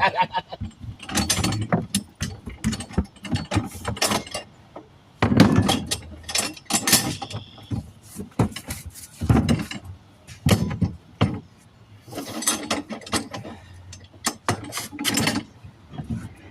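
Hand tools working a flat tire and wheel free: bursts of ratcheting clicks and metal knocks, broken by short pauses.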